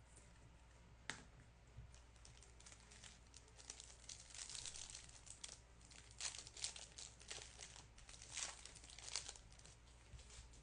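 Faint crinkling and tearing of a trading-card pack wrapper being opened, with a sharp click about a second in and a run of crinkly rustles after it.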